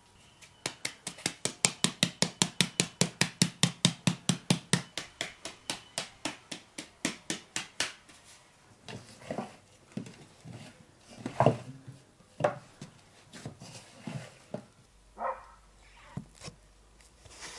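A wooden-rimmed flour sieve being shaken, making a quick, even run of knocks at about five a second for some seven seconds. After that a cleaver cuts down through a wheel of white cheese onto a wooden board, making irregular knocks, the loudest about halfway through.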